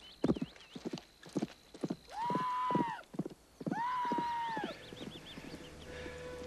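A horse galloping away, its hoofbeats fading. Two long, high calls of about a second each come around two and four seconds in.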